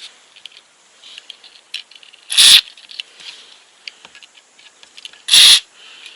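Two short sprays from a WD-40 aerosol can, about three seconds apart, with small clicks and scrapes of metal pump parts being handled between them. The penetrating oil is being sprayed to free a rust-seized pump impeller.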